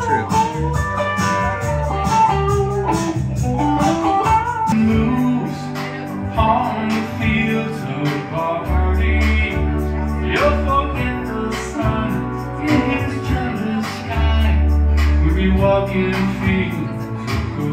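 Live guitar playing by a solo performer, an instrumental passage with no sung words.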